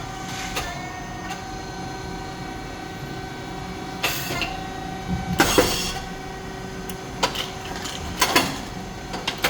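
SYP4509 rice cake machine running: a steady hum with a few fixed whining tones from its hydraulic motor, pump and oil-tank fan. It is broken by short bursts of noise about four seconds in, just past halfway (the loudest), and again near the end.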